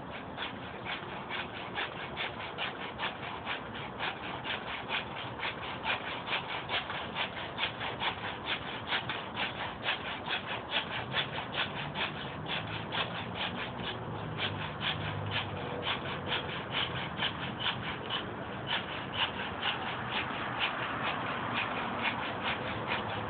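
Hand saw cutting through the cracked end of a dried wooden limb, in steady back-and-forth strokes at about three a second.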